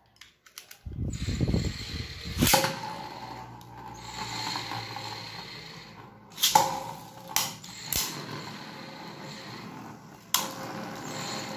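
Two Beyblade Burst spinning tops, a Roktavor and a Valtryek V2, launched for a battle. About a second in a string launcher's cord is pulled with a rough ratcheting whirr, ending in a sharp click as the top is released. Then comes a steady whir of the tops spinning on a hard flat tabletop, broken by several sharp clacks as the second top is launched and the two strike each other.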